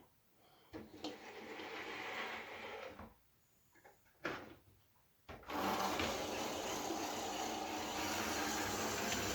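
HO scale model diesel locomotive running on the track: a steady hum and rattle of its small electric motor and gears, starting about five seconds in after a few short bits of handling noise and a click. It runs slowly, which the owner puts down to a motor burnt out from strain.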